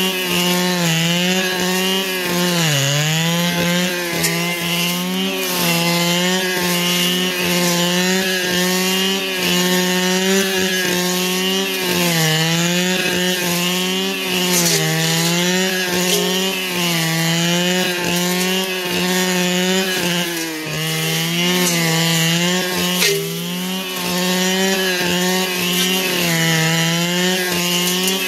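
Two-stroke brush cutter running near full throttle, its engine pitch dipping briefly and recovering every two to three seconds as it cuts under load.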